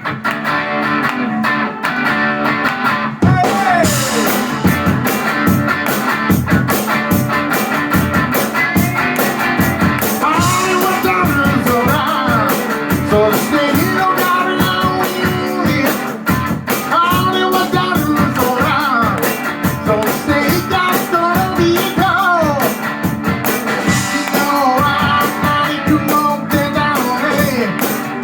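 Live rock and roll band playing an instrumental passage: guitar with bending, sliding notes over a steady drum beat and bass, coming in fuller about three seconds in.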